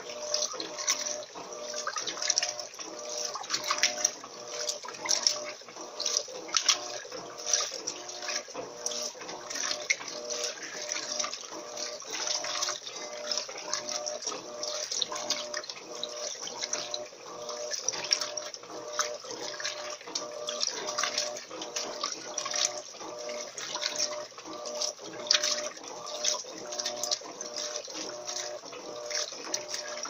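Electrolux LT13B top-loading washing machine agitating a load in soapy water during the wash cycle: continuous sloshing and splashing as the agitator swings back and forth, over a pulsing motor hum.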